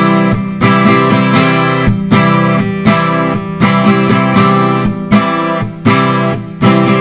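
Acoustic guitar strumming chords in a steady rhythm, each stroke ringing on into the next, with no singing.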